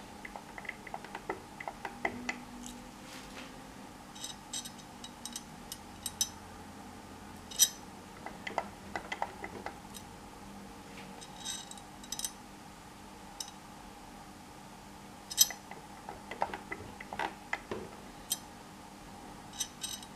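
Scattered small metallic clicks and clinks, a few sharp ticks at a time, as thin wire and small metal parts clamped in a bench vise are handled, over a faint steady hum.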